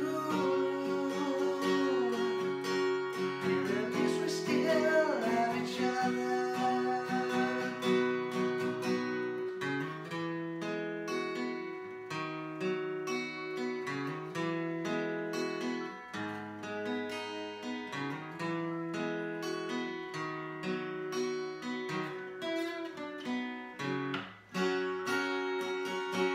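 A man sings over a strummed acoustic guitar; after the first few seconds the voice drops out and the guitar plays on alone, strumming steady chords.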